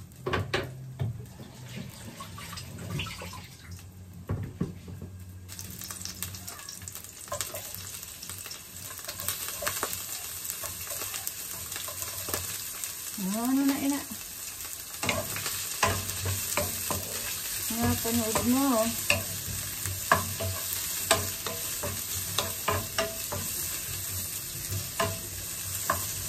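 Sliced onions and ginger sizzling in olive oil in a frying pan, with a wooden spatula stirring and scraping the pan. The sizzle is faint at first and turns into a steady loud hiss about five seconds in, as the onions go into the hot oil.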